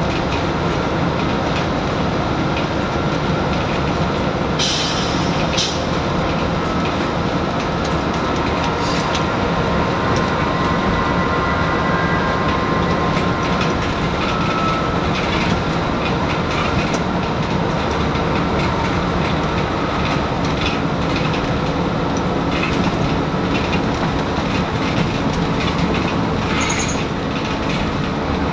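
Scania N94UD double-decker bus under way, heard from the upper deck: the steady drone of its nine-litre five-cylinder diesel under a constant wash of road and tyre noise with body rattles. A couple of short sharp rattles come about five seconds in and again near the end.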